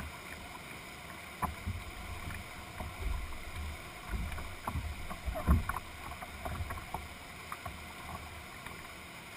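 Whitewater rapids rushing steadily, with irregular knocks and low thumps on the canoe's hull as it is lined down through the current along the bank. The loudest thump comes about five and a half seconds in.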